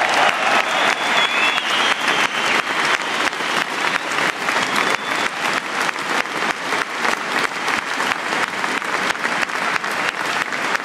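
Football stadium crowd applauding, with close-by hand claps standing out several times a second.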